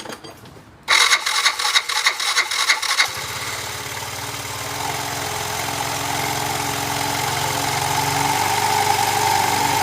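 A Yamaha scooter's single-cylinder engine cranks for about two seconds, catches and settles into a steady idle. It is running with the belt-drive transmission cover off, after a temporary washer was fitted in place of a broken plate in the variator.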